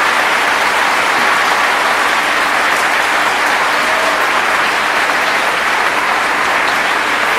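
Audience applauding steadily, a dense even clapping that holds at the same level throughout.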